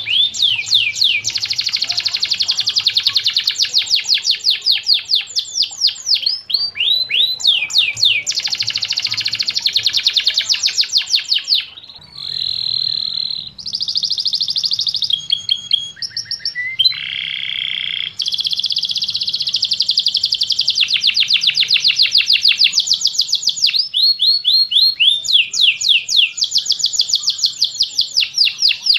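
Domestic canary singing a long song of rolling trills: fast runs of rapidly repeated high notes. Midway the song changes to a few held whistled tones and mixed notes, then the fast rolls resume.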